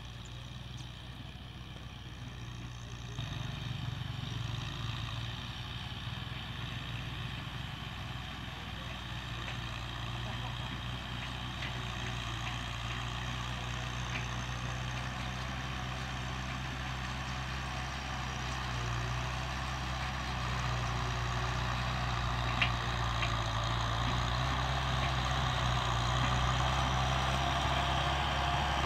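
Farm tractor engine running steadily while working a field, growing steadily louder as the tractor approaches. A single brief click about three-quarters of the way through.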